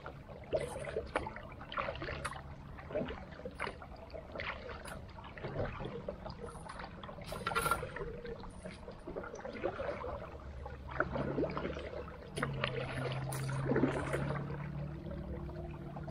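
Creek water moving, with irregular knocks and clicks and a low steady hum in the second half.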